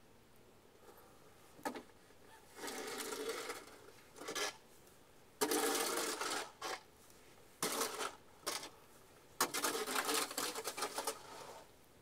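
Snow shovel scraping over packed, icy snow in a string of about seven strokes, with short pauses between them; the longest stroke comes near the end.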